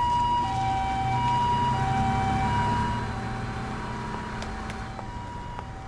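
Two-tone hi-lo emergency-vehicle siren alternating steadily between a higher and a lower note about every half second, over a low engine rumble, fading away after about three seconds.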